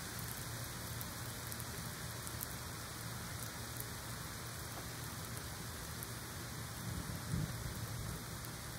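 Steady rain falling, with a brief low rumble of distant thunder about seven seconds in.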